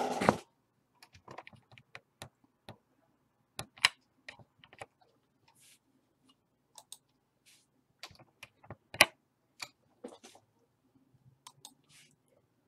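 Scattered, irregular clicks of a computer mouse and keyboard, a few sharper than the rest, with a short rustle right at the start.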